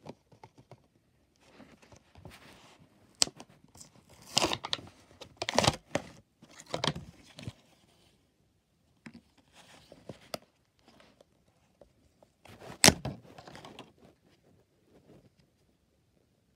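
Plastic packaging crinkling and tearing in irregular bursts as a small tub of toy putty is unwrapped, with one sharp snap about three-quarters of the way through, the loudest sound. Quieter handling noise follows.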